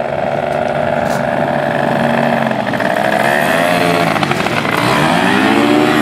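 Paramotor's two-stroke engine and caged propeller running loud and steady, its pitch then rising and falling twice in the second half.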